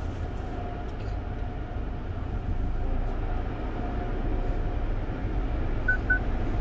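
Steady low mechanical rumble of a tunnel car wash's conveyor and equipment, heard from inside a car waiting at the entrance. There are two short high beeps near the end.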